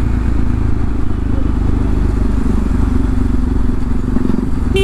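Bajaj Pulsar NS200's single-cylinder engine running steadily under way through a replica Akrapovic full exhaust system, with wind noise over it.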